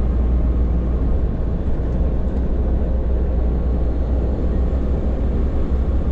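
Steady low drone of engine and road noise inside the cab of a Hino tractor-trailer under way.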